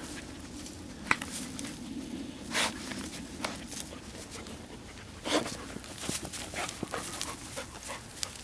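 A dog snuffling and digging at a mouse hole in dry grass: rustling and scraping, with a few short, loud rushes of breath as it sniffs into the hole.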